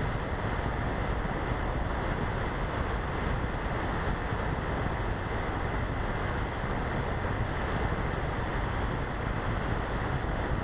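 Steady rush of wind over the onboard camera of an Easy Glider RC model glider in flight: an even noise with no motor whine in it.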